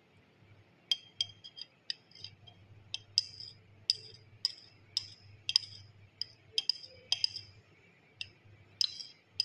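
Glass beaker clinking repeatedly against glassware, sharp ringing taps at roughly two a second and irregular, starting about a second in. The beaker is being knocked to shake the precipitated casein curd out onto a muslin-cloth filter.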